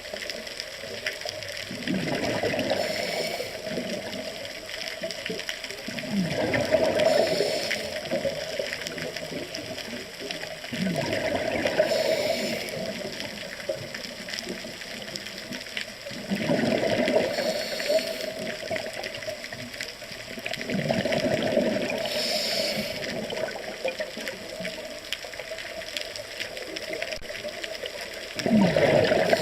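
Diver breathing through a scuba regulator underwater: a gush of exhaled bubbles about every four to five seconds, six in all, over a steady water hiss.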